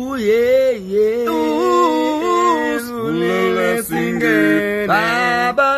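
Two men singing together without accompaniment, holding long notes, at times in two-part harmony.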